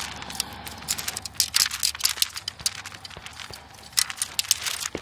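Scattered clicks and light metallic knocks as a radiator is handled and set into place in the front of a Land Rover Series 1, knocking against the body panel. They come in two busy clusters, one a second or two in and one near the end.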